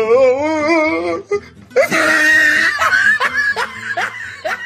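Comic vocal outburst: a wavering, warbling cry for about a second, then a loud shriek, then a run of short rising laughs.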